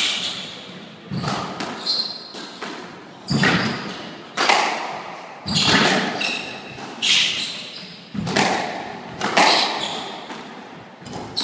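Squash rally: the ball is struck by the rackets and smacks off the court walls in sharp, echoing hits about once a second, with short squeaks of shoes on the wooden floor between the shots.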